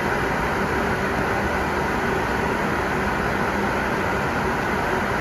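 Hisense DH3020K1W dehumidifier running, a steady fan whir with a low hum that does not change.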